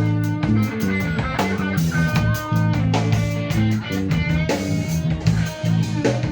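Live band playing blues-rock: guitar over a drum kit keeping a steady beat.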